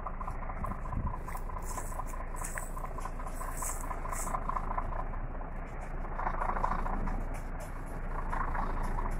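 A baler running steadily, with machine noise and a light rattle.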